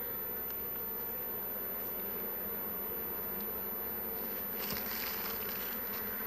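A large number of Carpathian honeybees buzzing around an opened hive that is being worked for honey, a steady, wavering hum. About three-quarters of the way through comes a brief scraping rustle.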